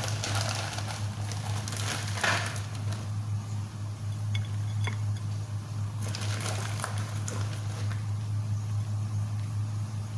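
Steady low hum, with a few faint clicks and light clinks scattered through it.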